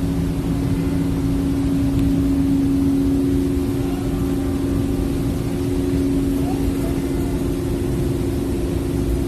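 A steady low hum with a deep rumble beneath it, holding the same few tones without change.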